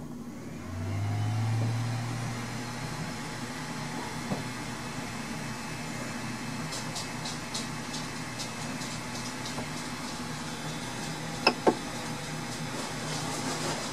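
Ender 3 Pro 3D printer running with the new SKR Mini E3 board, a steady mechanical hum of fans and electronics that the owner finds kind of noisy. A louder low hum comes in about a second in and holds for a couple of seconds. Two sharp clicks near the end come as the control knob is pressed.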